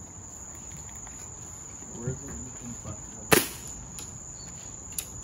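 A single sharp shot from a .22 air rifle about three seconds in, over a steady high-pitched trill of night insects.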